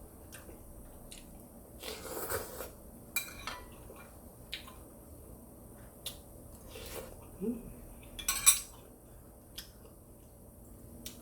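Scattered clinks and scrapes of eating utensils against dishes during a meal of seafood noodles, with the loudest clatter about eight and a half seconds in.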